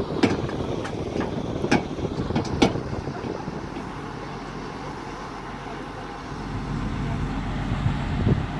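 Tata Hitachi Zaxis 220 excavator's diesel engine running steadily, with a few sharp knocks in the first three seconds. The engine grows a little louder near the end.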